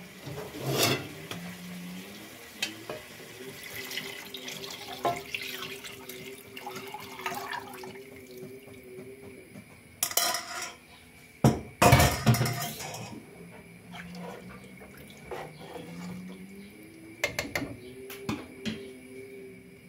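Pot and utensil clatter at a stove, and water poured into a pot of seared meat on the bone, splashing loudest from about halfway through.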